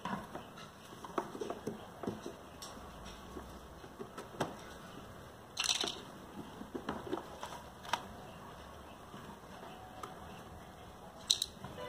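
Hands handling the plastic tubing and push-fit quick-connect fittings of an RO water purifier: scattered light plastic clicks and knocks, with two brief scratchy sounds, about halfway through and near the end.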